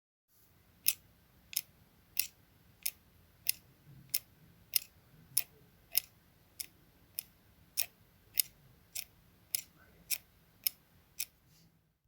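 Scissors blades clicking shut in a steady rhythm, a little under two clicks a second, used as a Foley stand-in for a clock ticking.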